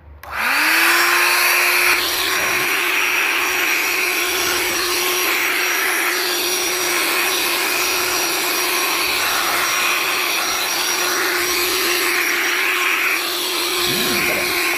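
Small electric air pump for inflatable pools, just repaired, switched on and blowing air: its motor spins up with a rising whine in the first half second, then runs with a steady whir and a loud rush of air.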